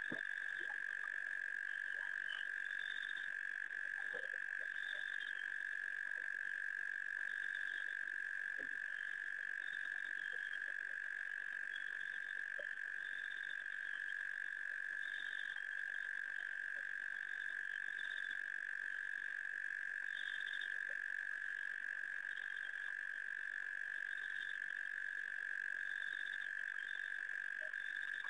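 Night chorus of frogs calling at a waterhole: a steady, unbroken high-pitched trill, with shorter, higher chirps every second or two on top.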